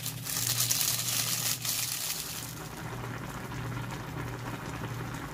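A pot of ramyeon in crab-and-fish broth boiling, a steady bubbling hiss that is brighter for the first couple of seconds, over a low steady hum.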